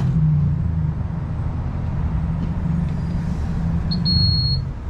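Low, steady motor rumble with a held hum, like an engine or pump running at a fuel pump. A short high-pitched beep sounds about four seconds in.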